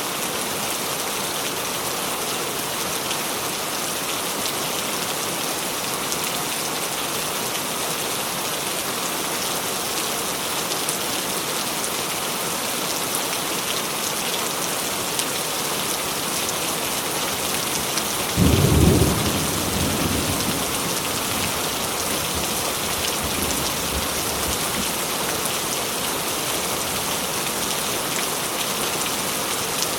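Steady heavy rain, with a single clap of thunder a little past the middle: a sudden deep rumble lasting about a second and a half that fades back into the rain.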